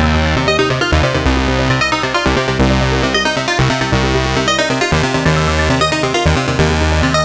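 Korg Volca synthesizer playing a looping sequenced electronic pattern: synth notes over a heavy bassline with a steady beat.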